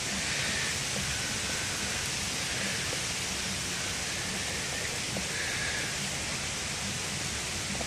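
Ice storm sleet and freezing rain pattering steadily on the greenhouse's plastic covering, heard from inside as a continuous even hiss.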